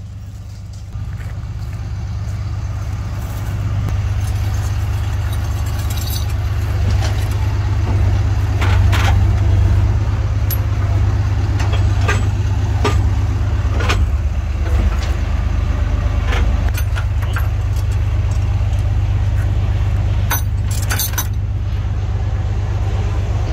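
Heavy truck engine idling steadily with a deep low rumble, while steel tow chains clink and rattle now and then as they are handled.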